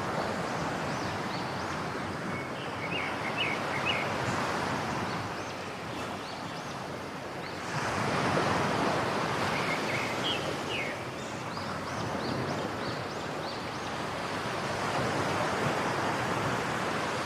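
Rainforest ambience: a steady rushing background noise that swells about halfway through, with small birds giving quick runs of high chirps twice.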